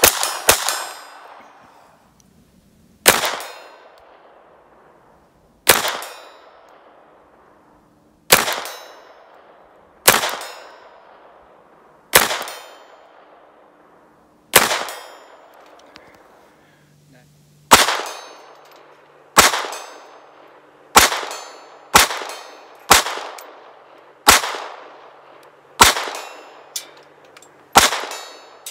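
Ruger LCP II .22 LR pistol firing single shots, each a sharp crack with a short echo. The shots come two or three seconds apart at first, then faster, about one a second, in the second half.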